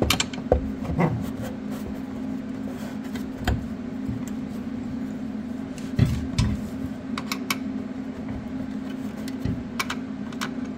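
Metal tools clicking, tapping and scraping against a car's rear trailing arm as a screwdriver pries at it, with a sharper knock about six seconds in. A steady low hum runs underneath.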